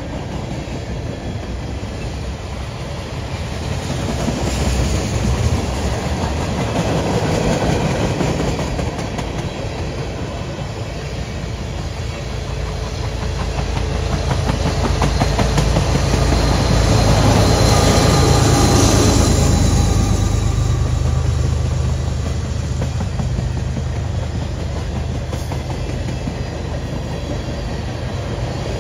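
Tank cars of a freight train rolling past, with a steady clickety-clack of wheels over the rail joints. The sound swells about two-thirds of the way through, with a faint high wheel squeal at its loudest.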